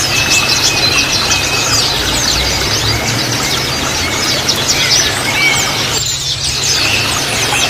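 Pleci (white-eye) birds chattering: a dense, fast stream of high, thin chirps and twitters, the 'ngriwik' call played to set a caged white-eye chattering.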